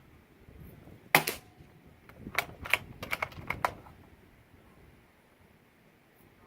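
One suppressed shot from a CZ 455 bolt-action .22 rifle firing Gemtech subsonic rounds through a Tactical Solutions Axiom 22 suppressor, a single sharp report about a second in. About a second later comes a quick run of metallic clicks as the bolt is worked to eject the case and chamber the next round.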